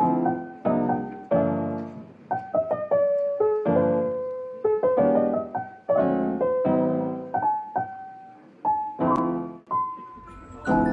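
Background music: a piano playing a melody over chords, each note struck and then fading.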